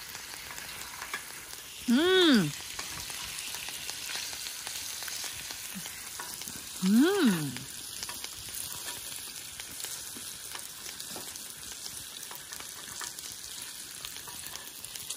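Samgyeopsal pork belly frying with a steady sizzle. Twice, a few seconds apart, a short vocal sound rising then falling in pitch cuts in, louder than the sizzle.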